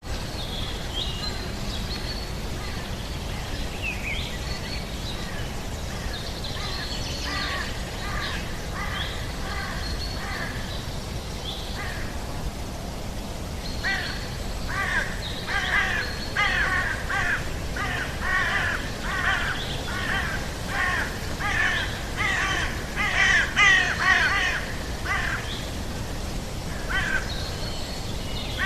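Outdoor nature ambience of birds calling over a steady low background rush. Higher, thinner calls come first, then from about halfway a busy run of harsh, repeated calls, several a second, before it thins out again near the end.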